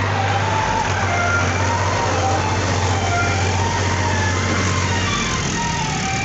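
A tractor engine running steadily, with a rising and falling tune over it; a low steady hum drops away about five seconds in.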